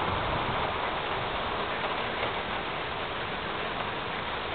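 Steady hiss of thunderstorm rain and wind, without a thunderclap.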